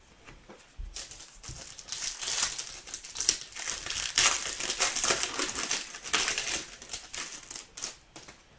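Plastic trading-card pack wrapper being torn open and crinkled by hand: irregular, crackly rustling that starts about a second in and dies away near the end.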